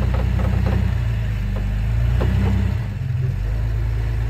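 Jeep Cherokee XJ engine running at low revs as the Jeep crawls up a sandstone rock ledge. The engine sound dips briefly about three seconds in.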